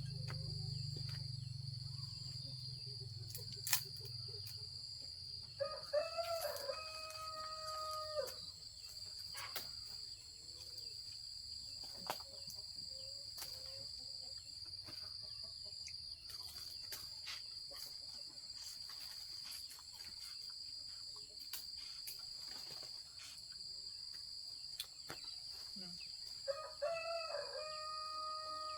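A rooster crowing twice: one long crow about six seconds in and another near the end. A steady high-pitched whine runs underneath.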